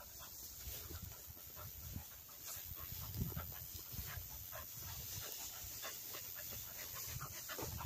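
Cocker spaniel panting in quick, irregular breaths.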